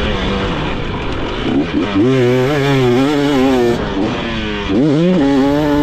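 Dirt bike engine revving under throttle while riding a motocross track, its pitch rising and falling. Two louder pulls come about two seconds in and again near the end.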